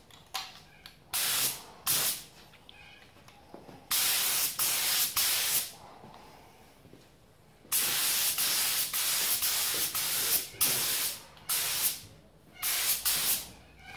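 Air-fed paint spray gun with a 1.8 mm nozzle spraying acrylic black in light first-coat passes, its hiss starting and stopping with each trigger pull. There are a few short bursts, then two longer passes of about two and three seconds, then short bursts again near the end.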